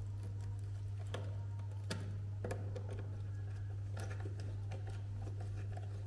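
A few light clicks and scrapes of a screwdriver and fingers working wires into the terminal screws of a plastic push-button switch box, over a steady low hum.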